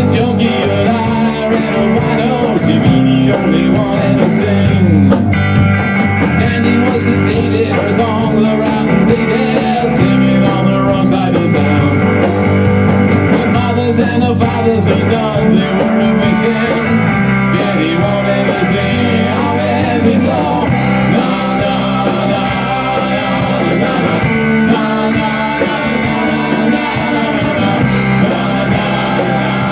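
Rock band playing live: electric guitar, bass guitar and drum kit together in a steady, loud rock song.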